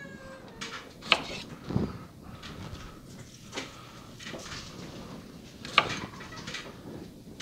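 Chef's knife cutting Brussels sprouts on a cutting board: a handful of sharp knocks of the blade on the board, with lighter handling and rustling between.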